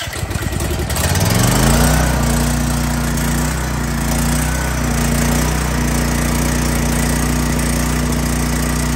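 Champion 100485 EFI portable generator's engine started on its electric push-button: the starter cranks briefly, the engine catches about a second in with a rising pitch, then settles into steady running. It is the engine's first start, and it fires without a choke because it is fuel-injected.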